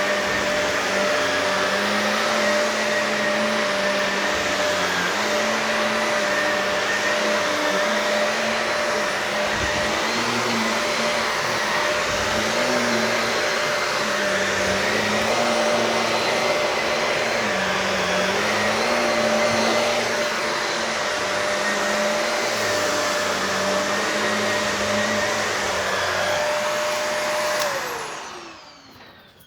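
Shark professional vacuum running steadily over carpet, a steady motor whine over a lower hum that rises and dips as it is worked back and forth. Near the end it is switched off and the motor winds down, its pitch falling away.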